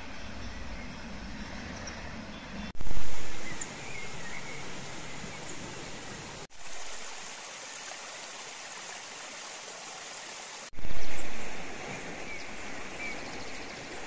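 Steady rush of a fast mountain river, swelling loudly about three seconds in and again near the end. In the middle stretch it gives way to the thinner, higher splash of a small spring trickling over rocks. A few faint high chirps sit on top.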